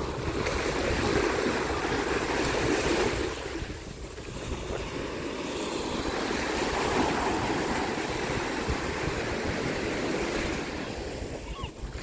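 Small sea waves breaking and washing up a sandy shore, the wash swelling and easing twice, with a lull about four seconds in. Wind rumbles on the microphone underneath.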